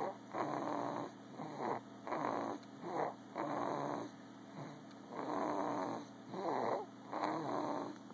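Snoring: rough, raspy breaths of about half a second to a second each, repeating roughly once a second with short pauses between.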